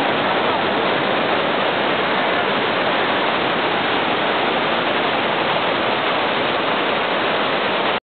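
Waterfall and rapids: water pouring over a wide rock ledge and churning through the rocks below, a steady rushing sound that does not change.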